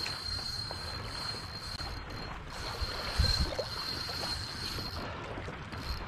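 Moving river water and wind buffeting the microphone. A faint steady high whine runs through it, breaking off briefly about two seconds in, and a loud muffled bump comes a little after three seconds.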